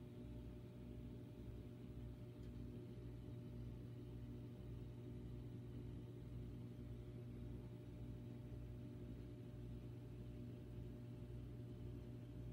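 Faint, steady low hum of a nano reef aquarium's water pump, with a lower throb pulsing about twice a second.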